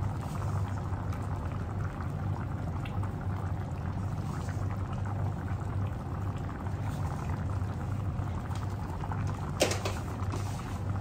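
Coconut-cream sauce with prawns bubbling at a simmer in a pan on a gas stove: a steady fine crackle over a low hum. There is a single sharp knock near the end.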